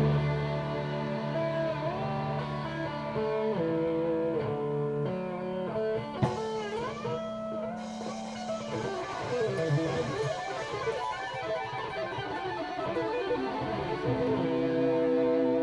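Electric guitar playing a lead line of held notes over a sustained low note, with a pitch bend that dips and rises about six seconds in.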